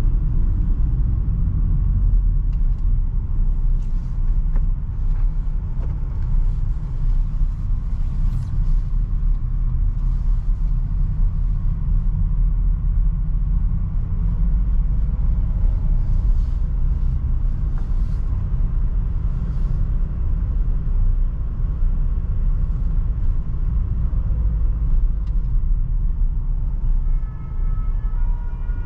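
Renault Trafic van driving, heard from inside the cab: a steady low rumble of engine and road noise. A faint, repeating high tone comes in near the end.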